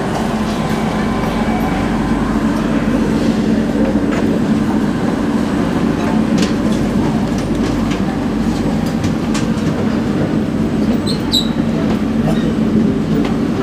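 Singapore MRT train running on the line, heard from inside the carriage: a steady rumble with scattered light clicks from the wheels and track. A brief high squeak comes about eleven seconds in.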